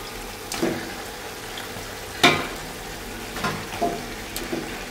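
Raw chicken pieces sizzling in hot oil and spice masala in a large metal pot as they are fried on high heat, while a spatula stirs and scrapes against the pot about five times, the loudest stroke a little over two seconds in.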